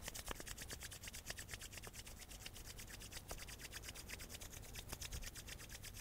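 Palms rubbed briskly together to warm the hands: a faint, fast, even back-and-forth rubbing of about eight strokes a second.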